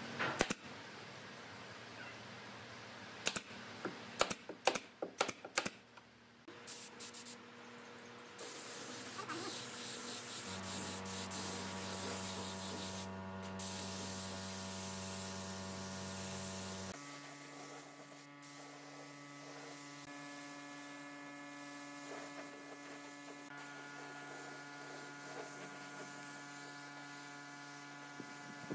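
A quick run of sharp clicks and knocks from a handheld power tool on the pine, then the hiss of a compressed-air spray gun spraying finish, over steady humming tones that shift twice.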